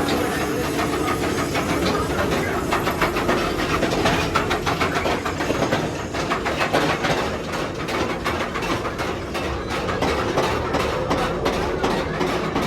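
Mine-train ride cars rattling and clacking along their track, a steady run of fast clacks over a low rumble.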